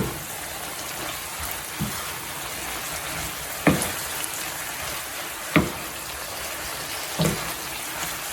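Julienned vegetables stir-frying in a pan with a steady sizzle, freshly stirred with cornstarch to thicken their juices. A utensil knocks sharply against the pan about five times, roughly every two seconds, as they are stirred.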